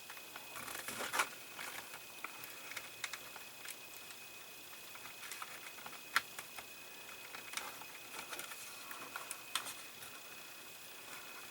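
Scattered light clicks, taps and rustles of hands handling thin wiring and small plastic parts of a scale model, with a sharper click about six seconds in. A faint steady high tone runs underneath.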